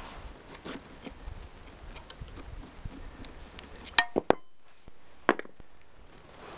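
A screwdriver and wrench clinking and scraping on the flywheel hub of a Ural-2 chainsaw engine as the flywheel is held and its nut worked. Light scraping and ticking, then three sharp metallic clinks with a brief ring about four seconds in, and one more sharp click about a second later.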